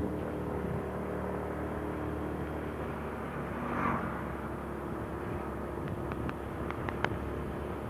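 Motorcycle engine running steadily while riding, with road and wind noise and a few faint ticks near the end.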